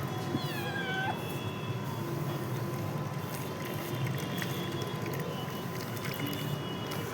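A domestic cat meowing once, a short call falling in pitch, near the start, over a steady low background hum.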